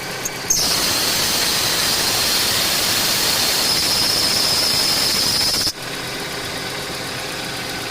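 Car engine idling as the air-conditioning compressor clutch engages and its pressure plate squeals with a high whistle for about five seconds, then cuts off. The squeal comes from the clutch pressure plate slipping on the compressor pulley, not from the drive belt. Poor grip there can come from dust, oil or water between the plate and the pulley.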